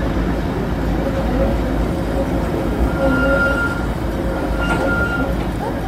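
Darjeeling Himalayan Railway narrow-gauge train running, heard from a coach window: a steady rumble of the coach on the rails. Two brief high squeals in the second half, from the wheels on the tight curve.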